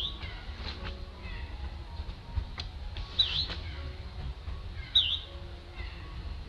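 A bird calling three times, each a short high note that dips and rises again, with fainter lower chirps between, over a low rumble.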